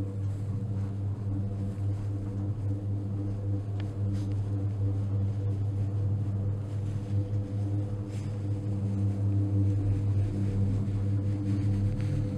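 Gondola lift cabin riding down its cable: a steady low hum, growing a little louder near the end, with a couple of faint clicks.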